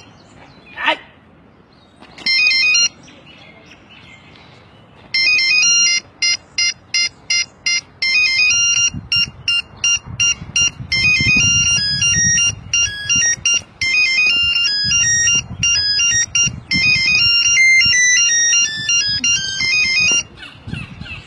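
Nokia 3310 mobile phone playing a monophonic ringtone as a melody of electronic beeps. A short phrase comes about two seconds in, and a longer, fast tune runs from about five seconds in until shortly before the end.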